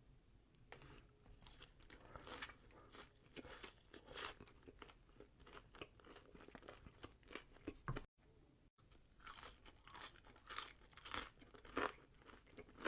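Close-miked chewing and crunching of crispy fried food, a run of short crackly bites and chews. The sound cuts out briefly about eight seconds in.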